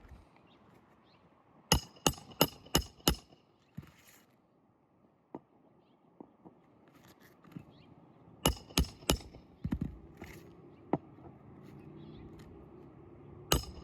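Hammer driving roofing nails into asphalt shingles: a quick run of five sharp strikes about two seconds in, then three more a few seconds later, with a few single knocks between.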